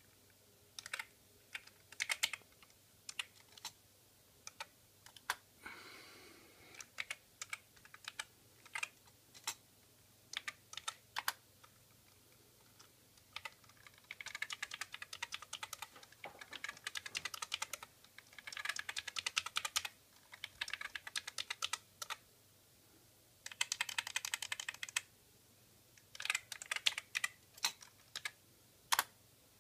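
Typing on the Yamaha CX11 MSX computer's built-in keyboard: separate keystrokes at first, then three quick runs of rapid key clicks in the second half as rows of digits are typed.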